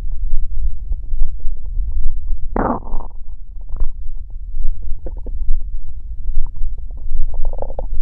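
A human stomach growling and gurgling: a steady low rumble dotted with small pops and clicks, with a loud gurgle about two and a half seconds in and another near the end.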